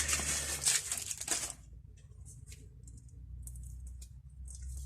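Rustling and scraping from unpacked tools and packaging being handled, loudest in the first second and a half, then a few faint light ticks over a low steady hum.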